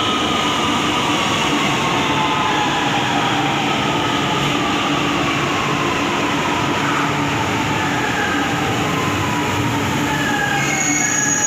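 Metro train running with a steady rumble, its motor whine falling slowly in pitch as the train slows. A high wheel squeal sets in near the end.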